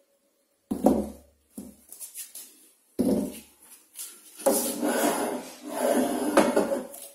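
Furniture-handling knocks from a transformer pouf being put back together: a heavy thud about a second in and another at three seconds, then a run of rubbing and knocking as the upholstered panels and metal-framed parts are pushed into place against each other on a wooden floor.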